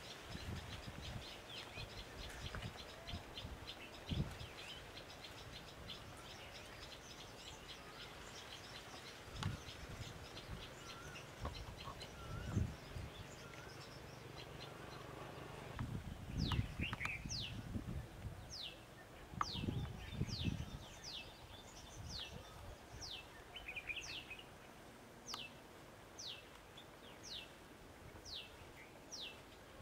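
Wild birds calling in scrub: a fast, high ticking chatter through the first half, then a bird repeating a short downward-sliding whistle about once a second. Occasional low thumps on the microphone.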